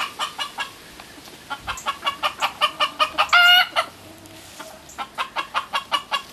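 Chickens clucking in quick runs of short, evenly repeated calls, about four or five a second, coming in three bouts. One longer, louder drawn-out squawk comes about three and a half seconds in.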